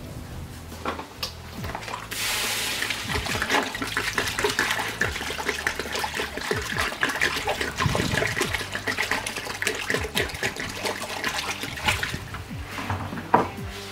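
Water poured from a jug into a hot wok of fried chili paste. About two seconds in it hits with a loud hiss, followed by sustained splashing and spattering as the liquid churns in the pan.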